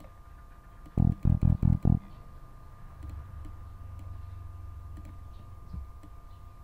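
Five short, low synthesized electric-bass notes from the Broomstick Bass plugin, played in quick succession about a second in as the notes are previewed while being edited in a piano roll. A faint low hum follows.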